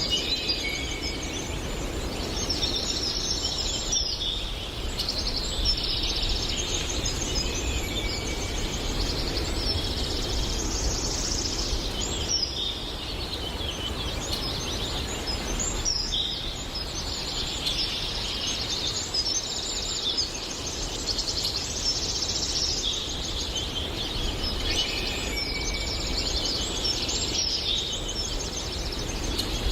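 Forest birdsong: several birds singing in overlapping, repeated trills and chirps, over a steady low background rumble.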